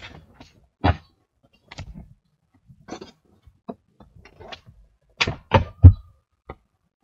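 A stiff molded floor mat being flipped over and handled, flexing and knocking against the car's floor and seat backs: a series of separate rustles and thuds, the loudest a sharp thud about six seconds in.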